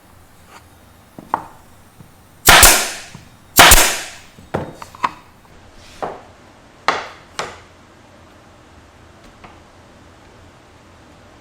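A string of sharp impacts from woodworking on the cabinet build. The two loudest strikes come about a second apart near the middle and each rings out briefly, with several lighter knocks around them.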